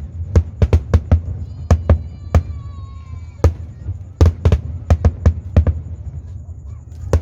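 Aerial fireworks shells bursting in a rapid, irregular series of sharp bangs, some in quick clusters, with a short lull near the end.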